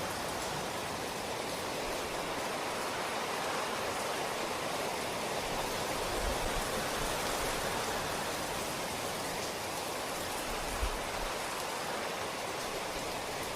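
Steady rain falling, an even hiss of many drops, with a couple of faint low thumps about six and eleven seconds in.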